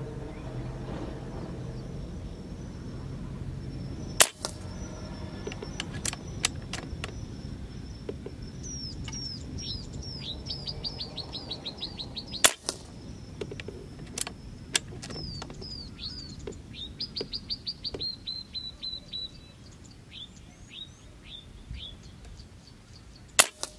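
Three sharp shots from an Artemis M22 PCP air rifle, about four, twelve and twenty-three seconds in, the first two each followed a couple of seconds later by a pair of lighter clicks. Between the shots a small bird sings repeated runs of quick falling chirps.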